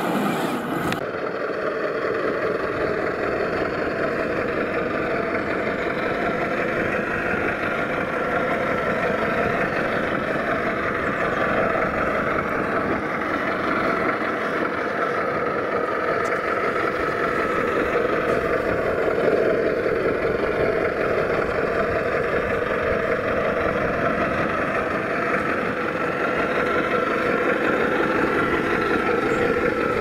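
Radio-controlled scale model trucks driving over gravel, their motors and gearboxes giving a continuous, steady drone.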